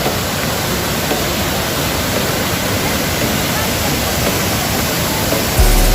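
Waterfall's water crashing down, a steady rushing noise. A loud low rumble comes in near the end.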